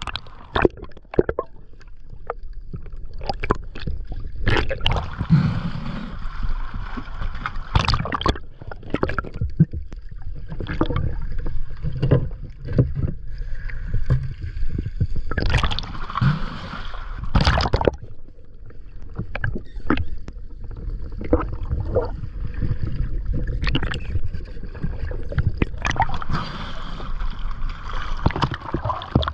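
Water sloshing, bubbling and splashing around an action camera as it is carried underwater and breaks the surface, over a muffled underwater rumble, with frequent short splashes throughout.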